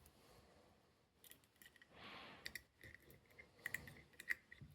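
Faint, irregular metallic clicks and light scraping as a wire pick works the levers of a 7-lever safe lock under tension from a ground-down key, some clicks ringing briefly; a soft breath partway through.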